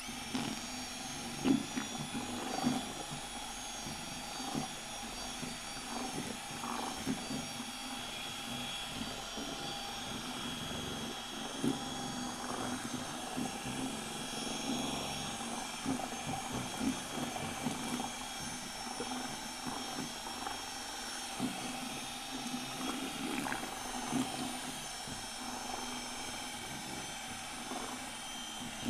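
Compact brushless cordless drill running steadily with a paddle mixer, stirring two-part epoxy resin and hardener in a plastic bucket, with a few short knocks along the way.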